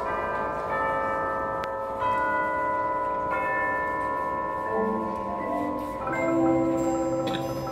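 Indoor drumline's front ensemble playing slow, ringing chords on mallet keyboards, the notes held long like bells. Lower marimba notes come in about five seconds in, and a deeper note joins about a second later.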